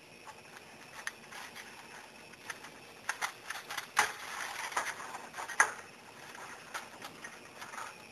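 Irregular clicks and a crackling rustle of something being handled, densest about halfway through, with one sharp click shortly after.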